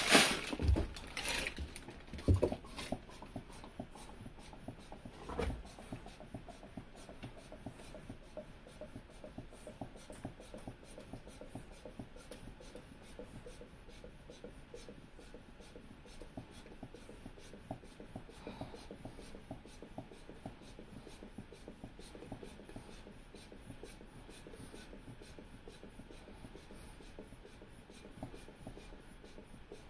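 Faint rubbing and soft clicks repeating about three times a second, with a few louder knocks in the first six seconds. This is the sound of rubber tubing and a rubber bladder being handled while a mine-air sample is drawn into the bladder.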